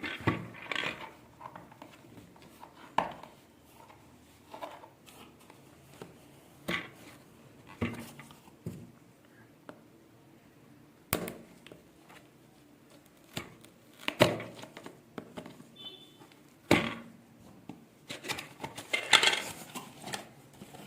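Hands opening a spirometer's box and its packaging: scattered clicks and knocks of hard plastic parts and cardboard, with rustling in between.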